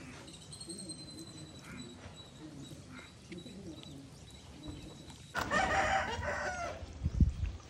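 A rooster crowing once, a long call starting about five seconds in, followed by a low thump near the end.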